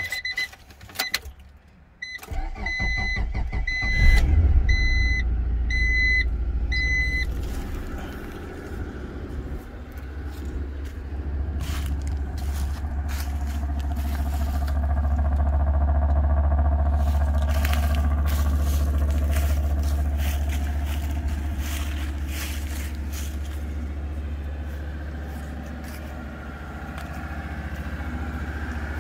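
High-mileage Acura Vigor's 2.5-litre inline-five on a cold start: the starter cranks for about two seconds and the engine catches with a burst of revs, while a dashboard warning chime beeps repeatedly. It then settles to a steady idle, with footsteps crunching through dry leaves part way through.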